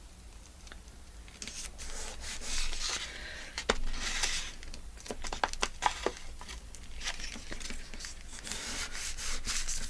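Paper being handled and rubbed: a soft rustling and scraping that starts about a second in and comes and goes, with a few sharp ticks around the middle.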